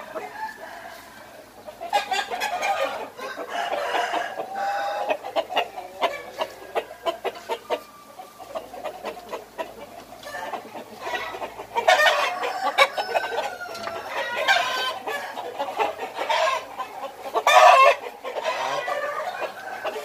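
Young gà nòi fighting-breed roosters (stags) clucking and calling in their pens, with some crowing. The calls come in irregular bursts and are loudest in the second half.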